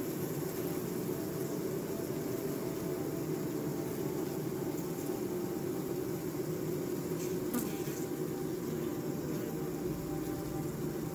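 Steady low droning buzz with a faint high hiss, and a brief click about seven and a half seconds in.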